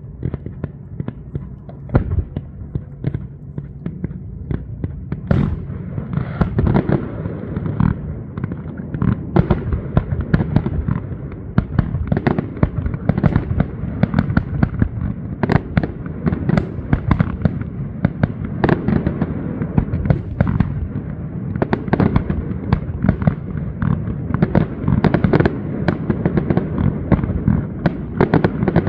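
Fireworks display: a dense, continuous run of bangs and crackles, several a second, growing busier after about six seconds.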